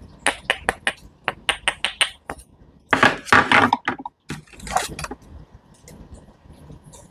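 Knife cutting food on a cutting board: a quick run of about a dozen sharp cuts, then a longer, louder stretch of crunching cuts and a shorter one after it.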